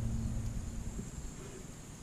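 A low steady mechanical hum that fades out about a second in, leaving faint background hiss.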